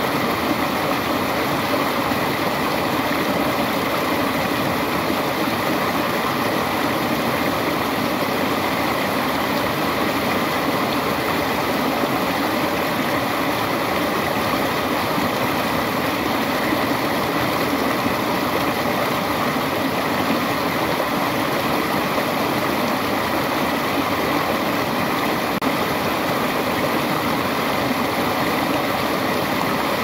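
Small waterfall splashing down over rocks into a pool: a steady, unbroken rush of water.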